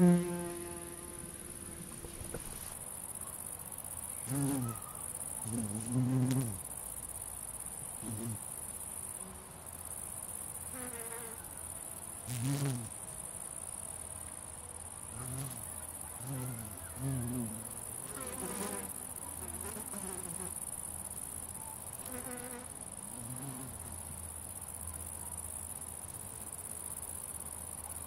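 Grasshoppers stridulating in a steady high-pitched hiss, with flying insects (bumblebees and flies) buzzing past the microphone about ten times, each buzz swelling and fading within a second or so. The loudest buzz comes right at the start.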